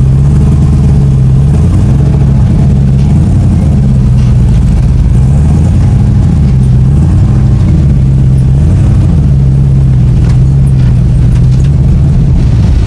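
Off-road vehicle engine running loud and steady, its revs rising and falling gently every second or two.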